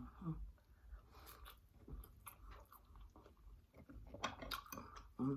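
Close-miked chewing of a mouthful of macaroni and cheese: soft, irregular wet mouth clicks and smacks.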